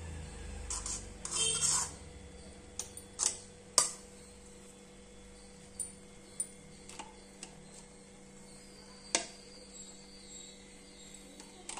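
A spoon scraping and knocking against a metal cooking pot while ghee is spooned over layered biryani rice. A short scraping rustle comes about a second in, then scattered single sharp taps over the following seconds.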